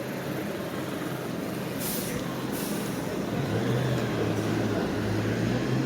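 A large road vehicle's engine, such as a bus or truck, running with a steady low hum that grows louder about three and a half seconds in. About two seconds in come two short hisses, like air brakes releasing.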